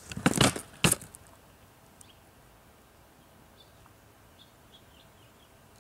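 A few short, loud rustling or scraping noises within the first second, then quiet room tone with a few faint high chirps.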